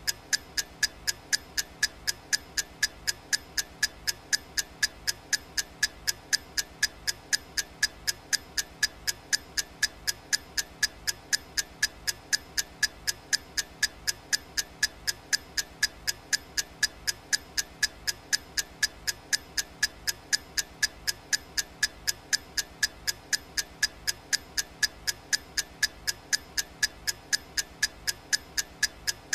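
Clock ticking sound effect from a countdown timer: sharp, evenly spaced ticks at a steady, fast pace.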